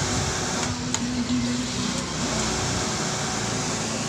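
Yamaha FZR250's inline-four engine running steadily, after a shim-type valve clearance tune-up.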